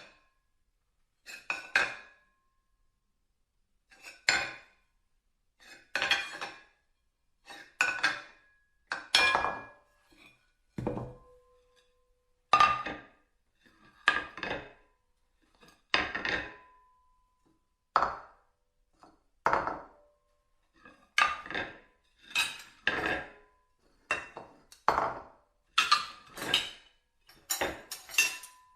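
Plates clattering and clinking as they are handled and set down, in separate short bursts about every one to two seconds with silence between, a few leaving a brief ringing tone. The bursts come closer together near the end.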